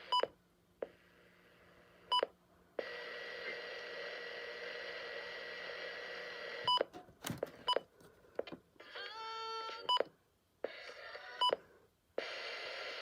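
Short electronic beeps, about five at uneven intervals, between stretches of hiss and near quiet. About seven seconds in there is a brief loud crackle, and just after it a quick run of stepped tones rising and falling.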